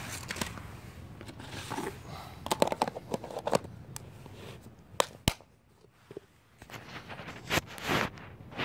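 Hard plastic food container being handled close by: a run of sharp clicks and scrapes, bunched together a couple of seconds in, then a few single sharp clicks later on.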